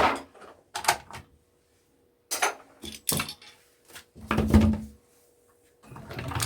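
Plastic and metal parts of a dismantled projector being handled: a run of sharp clicks and clatters, about five in all, with a longer, heavier knock about four seconds in.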